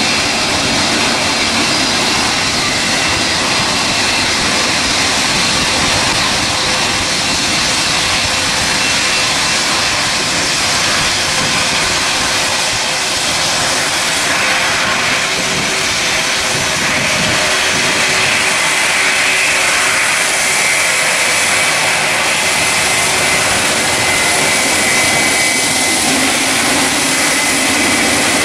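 Boeing 777 twin-engine jet airliner taxiing and turning onto the runway, its jet engines running at low taxi power as a steady whine and rush.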